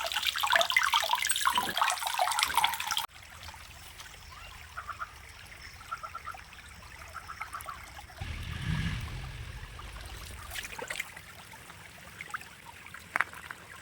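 Water trickling and splashing over stones in a small tabletop waterfall, cut off abruptly about three seconds in; only faint scattered sounds follow.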